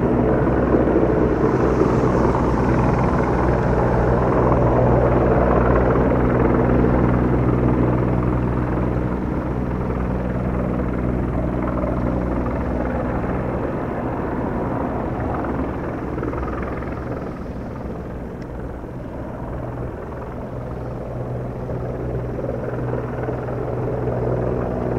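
Four-bladed news helicopter flying overhead, its rotor and engine giving a steady drone. The drone is loudest in the first half, fades somewhat past the middle and swells again near the end.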